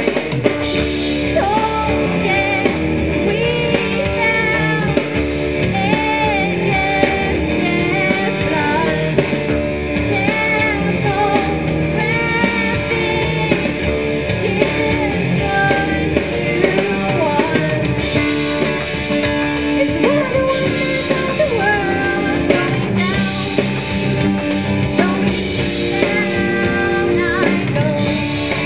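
Rock band playing: electric guitar and drum kit, with a gliding melodic lead line over the steady backing.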